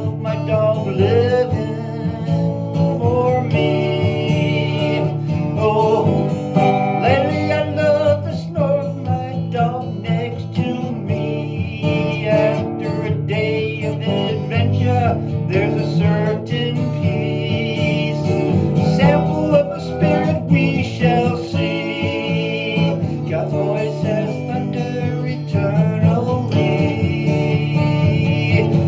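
Country-style music: strummed acoustic guitar under a wavering melody line, an instrumental passage with no words sung.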